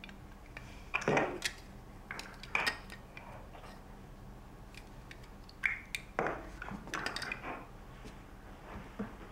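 Household clatter: a scattering of light knocks and clinks from objects being handled, the strongest about a second in and near two and a half seconds.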